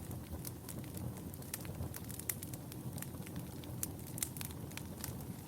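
Wood fire burning in a fireplace: a low steady rumble of flames with frequent sharp, irregular crackles and pops.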